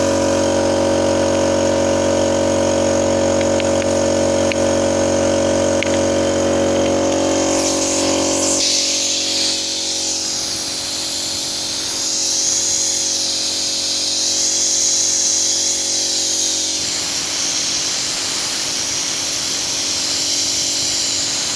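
A running machine hums steadily with several fixed tones. About eight seconds in, a loud steady hiss joins it and lasts on through the rest.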